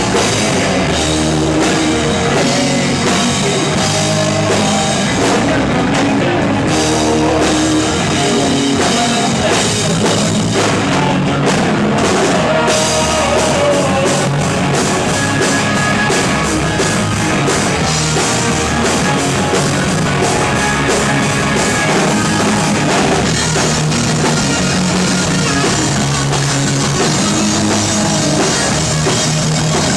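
A rock band playing live: a drum kit and guitars at steady, full volume throughout.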